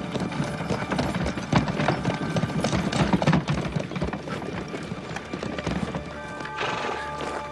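Hooves of a pair of horses clip-clopping as they pull a wooden wagon at a walk. Music runs underneath and grows stronger near the end.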